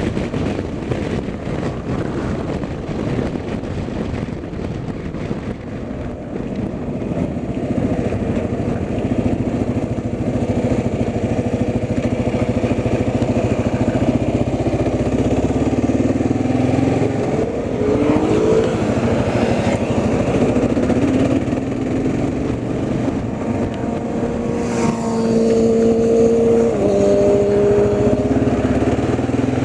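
A vehicle driving, with steady engine and road noise; the engine note rises and shifts about two-thirds of the way through, then holds a steady hum.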